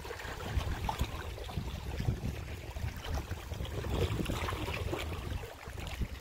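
Small waves lapping and splashing on choppy open water, with gusty wind rumbling on the microphone.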